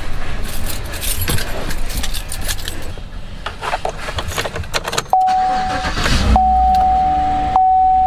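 Keys jangling and clicking in the cab of a Chevy Silverado pickup. About five seconds in, a steady electronic chime tone from the dashboard starts and carries on, and a low rumble joins it about a second later.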